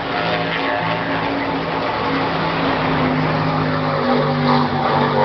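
Racing powerboat engine running at speed, a steady drone whose pitch drifts slightly up and down.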